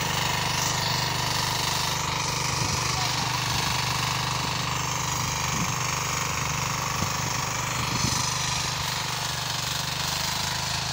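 Two-wheel power tiller's engine running steadily while its rotary tines churn dry soil.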